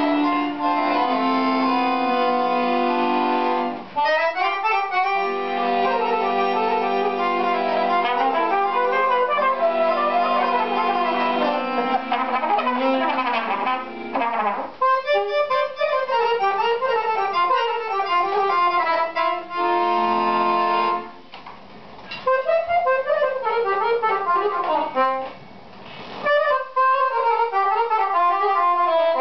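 Live band music from accordion, saxophone and trumpet. It opens on held chords, then moves into fast, ornamented melodic runs that rise and fall. The playing breaks off briefly twice in the last third.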